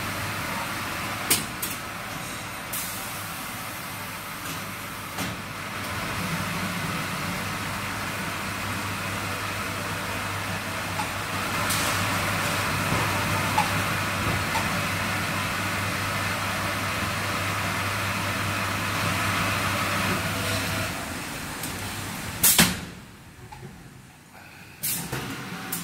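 A 5-gallon barrel water filling machine running: a steady rushing noise with a few clicks, joined by a steady low hum about six seconds in that stops about 21 seconds in. A loud, sudden burst follows about a second later, after which the machine goes much quieter, with another short burst near the end.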